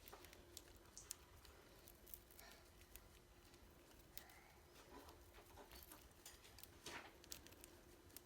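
Faint, irregular small clicks and taps of a budgie pecking and husking seed from a hand.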